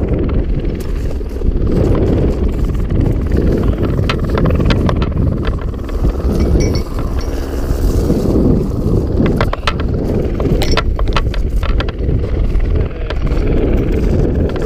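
AS350 helicopter's rotor and turbine running close by, its downwash buffeting the microphone with a heavy, steady rumble. Bursts of sharp clicks and clinks come twice, near the middle and about two-thirds through.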